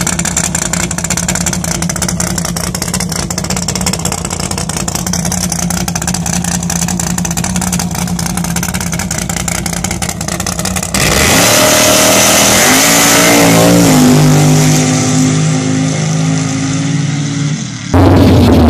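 Heavily modified Hummer H1 engine running with a steady, rough, rumbling note. About eleven seconds in it gets louder and is revved up and back down. Near the end there is an abrupt switch to another loud engine running.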